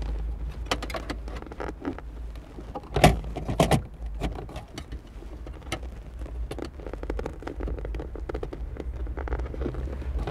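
Scattered clicks and knocks of a long screwdriver and hands working in the dashboard's console opening, metal tapping against plastic while the screwdriver is fed toward the heater controller's screws, with a louder clatter about three seconds in.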